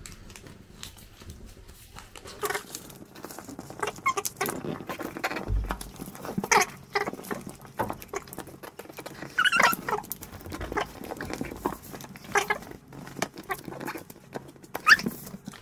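Origami paper being handled, rustling and scraping as fingers fold and crease it against a tabletop: a string of short, irregular rustles with a soft thud about five and a half seconds in and a sharper scrape near the end.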